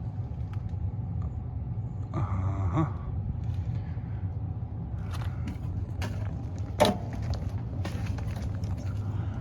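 Rustling and scraping of a person crawling and handling things in a crawl space, with one sharp knock about seven seconds in, over a steady low hum.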